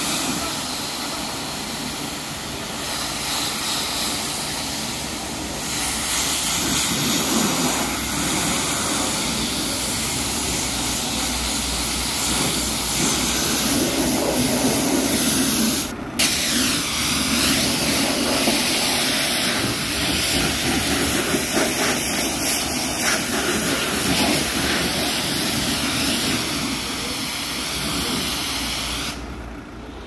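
Pressure washer jet spraying water onto a car's bodywork: a loud, steady hiss that cuts out for a moment about 16 seconds in and falls away near the end.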